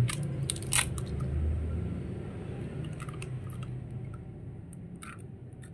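A raw egg cracked one-handed on a stainless steel mixing bowl: a few sharp taps and clicks in the first second, then faint small ticks as it drops into the mix, over a low steady hum.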